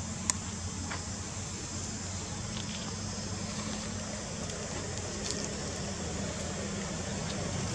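Steady low hum of a running motor under a constant high insect-like hiss, with one sharp click about a third of a second in.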